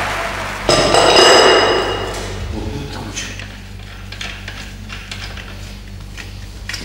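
Steel tubes of a rehabilitation exercise frame clanking against each other as the frame is handled and fitted together. A loud metallic clang about a second in rings for a second or so, followed by lighter clicks and taps of metal on metal.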